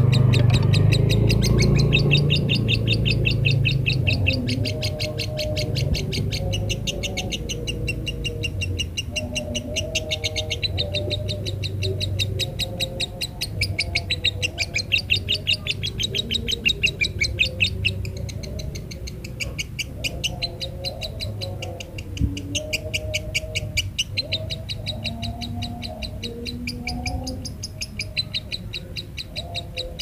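Lovebird singing a long, unbroken run of fast, high chirps, many to the second, with a low rumble under the first few seconds.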